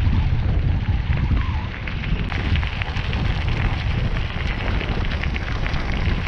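Bicycle tyres crunching over a loose gravel trail, a steady dense crackle, under a loud low rumble of wind buffeting the camera microphone while riding.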